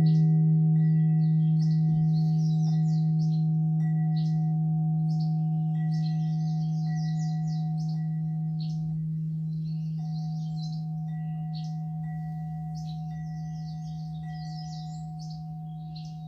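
A gong struck once, ringing with a deep steady hum and several higher overtones that slowly fade away. Birds chirp throughout.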